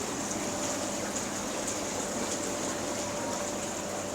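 Canadian Spa River Rapids hot tub running: water churning and bubbling steadily over the muffled hum of its pump unit.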